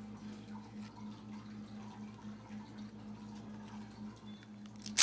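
Steady low electrical hum with faint handling ticks, then a short, loud crinkle of a foil trading-card pack right at the end.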